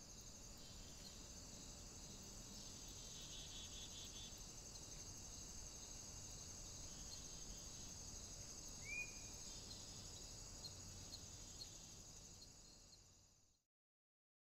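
Faint, steady high-pitched chirring of insects in a grassy field, with one short bird chirp about nine seconds in; the sound fades out shortly before the end.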